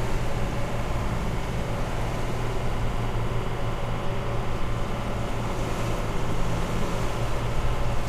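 A motor yacht's engines running steadily under way, a constant low hum, with an even rush of wind and water over it, heard from inside the galley through an open door.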